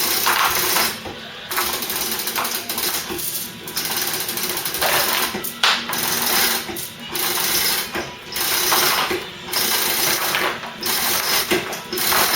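Manual chain hoist being hauled in repeated strokes, its chain and ratchet clattering in bursts about a second long with short pauses between, as a heavy load is lifted.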